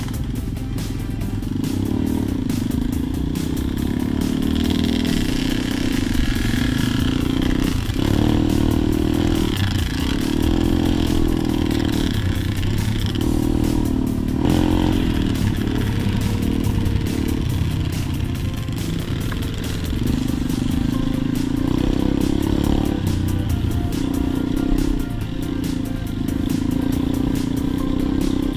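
Dirt bike engine running and revving up and down as the bike rides a rough off-road track, heard from the rider's helmet.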